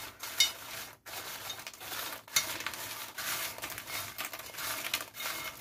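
Hands tossing crisp fried churros with sugar on a stainless steel plate: a steady rustling and scraping of the sticks against the metal, with many small clicks.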